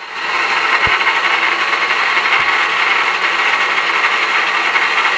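Electric mixer grinder running flat out, its motor and blades grinding a wet green chutney of coriander, mint and spices into paste. The steady whir cuts in abruptly and holds unchanged.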